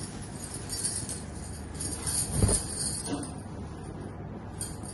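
A tussar silk saree being handled and spread out, the fabric rustling, with light jingling and one thump about two and a half seconds in.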